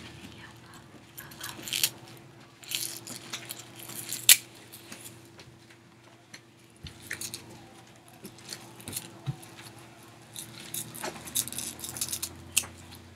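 Small plastic toy and blind-bag packaging being handled: scattered rustling, light clicks and taps, with one sharp click about four seconds in.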